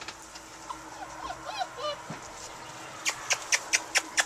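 Puppies whimpering in short, squeaky rising-and-falling whines, followed near the end by a quick run of short sharp sounds about five a second.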